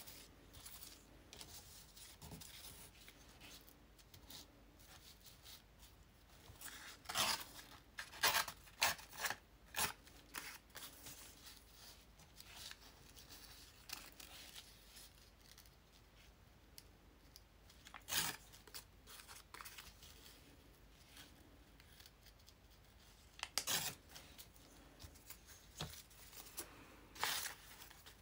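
Printed paper being torn against the edge of a steel ruler: short, sharp rips in small groups with pauses of handling in between.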